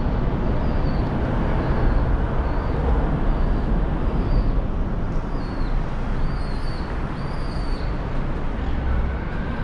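Outdoor ambience: a steady wash of noise with a heavy low rumble, and small birds chirping in short calls over it.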